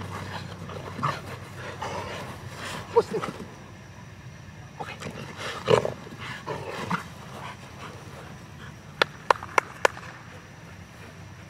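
A dog vocalizing in short bursts while tugging on a toy, followed by four sharp clicks in quick succession about nine seconds in.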